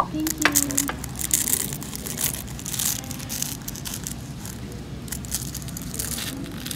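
Crisp, flaky filo pastry layers crackling and crunching as a fork and knife cut down through them, a steady run of small sharp crackles.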